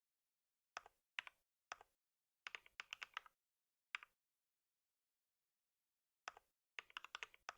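Typing on a computer keyboard in short spurts: a few separate keystrokes, then a quick run of them, a pause of about two seconds, and another quick run near the end.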